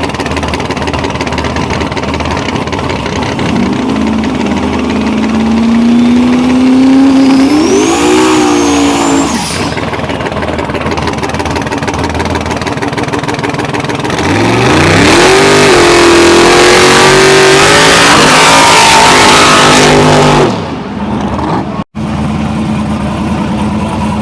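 Drag race car engines at full throttle. An engine revs up a few seconds in and holds high for several seconds, then drops away. After a lull, a louder full-throttle run climbs quickly in pitch and holds for about six seconds before falling off abruptly.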